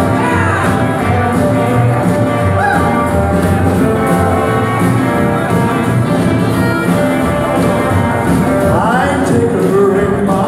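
Live rockabilly band playing, with upright bass and acoustic guitar, and a few sliding lead notes about two and a half and nine seconds in.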